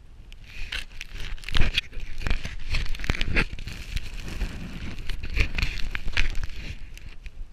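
Close crinkling, crackling rustle with irregular clicks, as clothing or gear rubs against the camera's microphone, over wind rumbling on the microphone. The rustling starts about a second in and dies away near the end.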